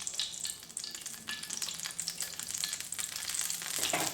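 Cooking oil sizzling and crackling in a frying pan as it heats up, before any fish goes in.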